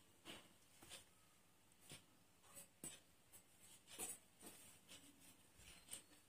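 Faint, intermittent scratching of an embroidery needle and thread being drawn through cloth stretched taut in an embroidery hoop as chain stitches are worked, a soft rustle every second or so.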